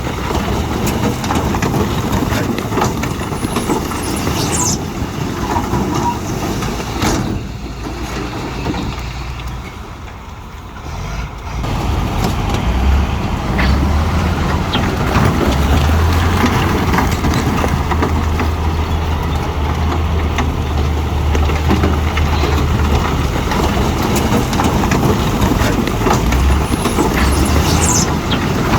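Heavy diesel earthmoving machinery running under load, a steady engine noise that eases off about ten seconds in and then comes back with a stronger low drone.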